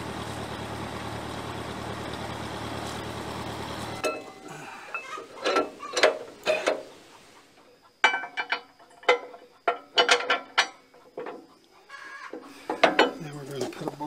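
Old Ferguson tractor engine idling steadily. About four seconds in it gives way to a string of sharp metal clanks and knocks as steel backhoe mounting parts are handled and fitted.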